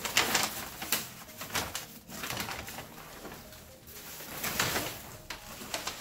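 Rustling and crinkling of foam and plastic packaging wrap as a painted plastic car bumper cover is pulled out of its shipping box, in irregular bursts about every second.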